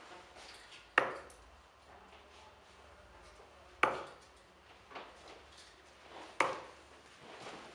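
Three steel-tip darts striking a Bull's Focus II bristle dartboard one after another, each a single sharp thud, about two and a half to three seconds apart.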